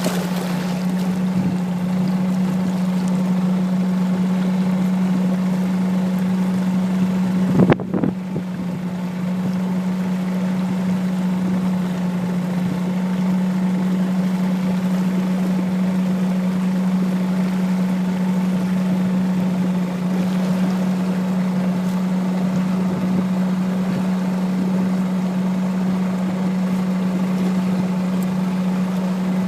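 Motorboat engine running at a steady speed, giving an even low drone over wash and wind noise, with one brief loud thump about eight seconds in.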